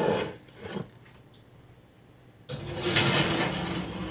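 Cast iron pan scraping on a wooden table as it is slid away, with a knock just under a second in. About two and a half seconds in, a louder, longer noise starts, with a steady low hum under it.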